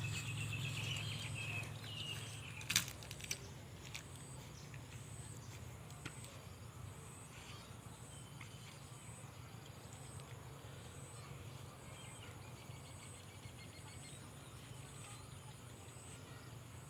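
Outdoor ambience: a faint high chirp repeating about every three quarters of a second over a low steady hum, with one sharp crack about three seconds in and a few softer clicks after it.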